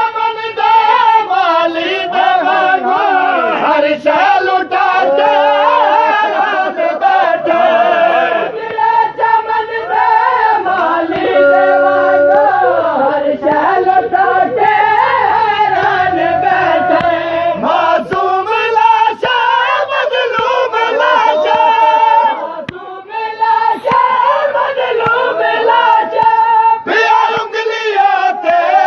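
Voices singing a noha, a mournful Shia lament for Imam Hussain, in long, wavering sung lines.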